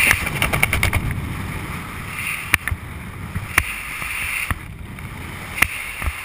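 Airflow rushing over the microphone during a descent under an open parachute canopy, with a quick flutter of clicks about a quarter second in and three single sharp snaps later.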